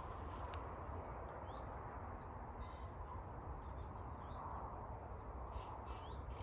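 Small songbirds singing faintly in short chirping phrases over a steady low rushing noise.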